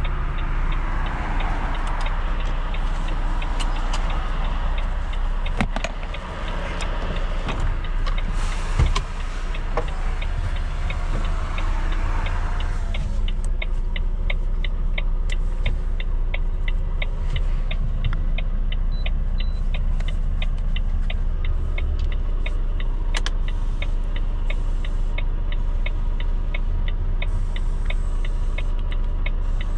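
Volvo FM4 truck's diesel engine running steadily under way, with road noise over it for the first twelve seconds or so. From about twelve seconds in, an even clicking of the turn-signal indicator, about two to three ticks a second.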